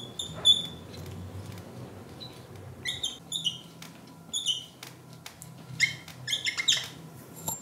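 Whiteboard marker squeaking on a whiteboard as letters are written: short high squeaks that slide down in pitch, coming in several clusters with pauses between.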